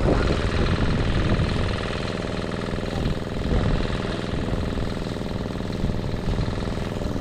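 Portable generator engine running steadily, powering the borehole pump.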